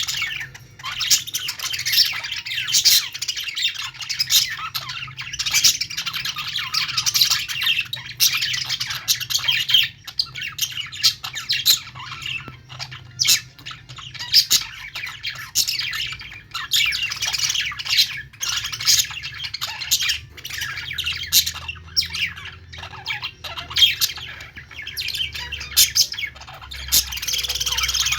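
Several budgerigars (budgies) chattering and chirping: a dense, continuous run of short, quick calls with only brief lulls.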